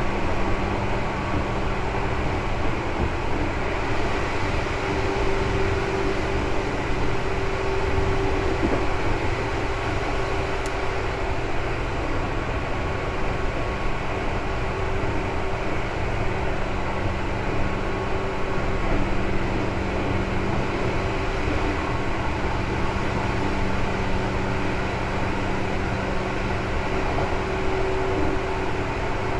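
Interior running sound of a Seibu 2000 series electric multiple unit: a steady rumble from the wheels and running gear with a constant low hum, the train moving at an even pace.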